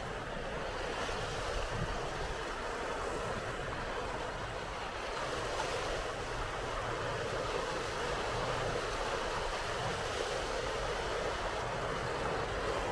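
Sea waves washing and wind blowing: a steady rushing noise with no distinct events.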